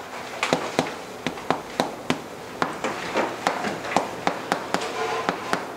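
Chalk writing on a chalkboard: an irregular run of sharp taps, about three or four a second, as letters are stroked onto the board.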